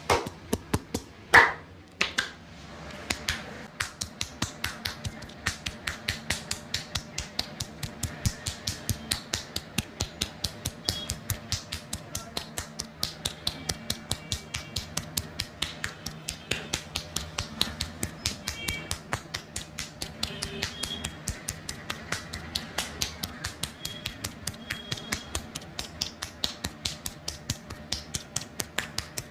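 Rapid percussive hand massage: the barber's hands tapping and slapping on the head and shoulders in a fast, even rhythm of sharp claps, several a second, with one louder clap about a second and a half in.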